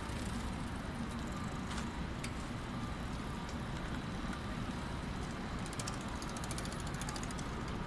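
City street ambience: a steady low rumble of distant traffic, with a fast run of light ticking from about six to seven and a half seconds in.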